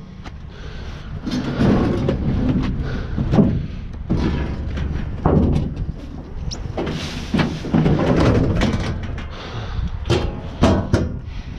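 Sheet-metal washing machine being heaved and slid onto a pickup truck's tailgate and bed: irregular scraping, bumping and knocking of the metal cabinet against the truck, with a quick cluster of sharp knocks near the end.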